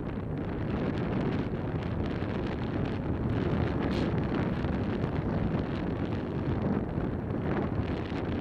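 Wind buffeting the microphone of a helmet camera on a moving motorbike: a steady low rumble that covers any engine sound.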